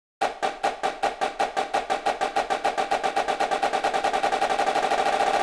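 Snare drum played as an accelerating roll: separate strokes start about a quarter of a second in and speed up steadily until they blur into a continuous roll.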